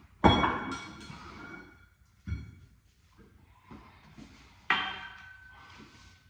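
Metal gym weights clanking three times: a loud ringing clank, a dull thud about two seconds later, then another clank near the end whose ring lingers.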